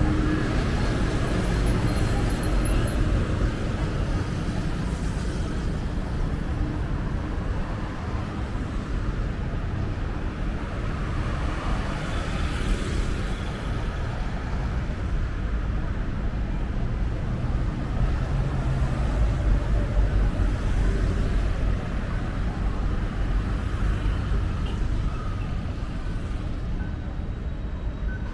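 Busy city road traffic: a continuous rumble of car and bus engines and tyres, swelling a few times as vehicles pass close by.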